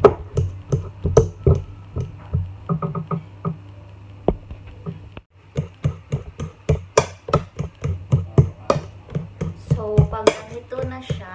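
Metal fork mashing ripe bananas in a bowl: repeated sharp taps and scrapes of the fork against the bowl, about two to three a second, with a brief break a little after five seconds.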